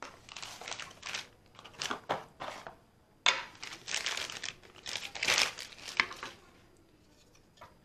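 Clear plastic packaging bag crinkling as it is handled, in two spells with a short pause about three seconds in, stopping about six seconds in.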